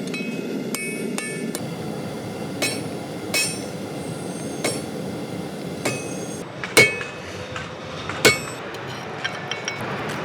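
Hand-forging a nail: irregular hammer blows on hot iron at the anvil, each strike ringing briefly, the two loudest about seven and eight seconds in, over a steady rushing noise.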